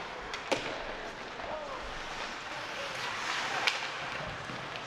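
Ice hockey play in a rink: two sharp clacks of stick on puck, about half a second in and near four seconds, over the steady scrape of skates on ice and faint spectator voices.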